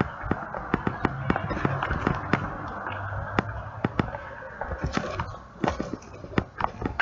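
Rapid, irregular sharp clicks and knocks over a steady rustling rush: handling noise from a handheld camera rubbing and bumping against clothing and skin.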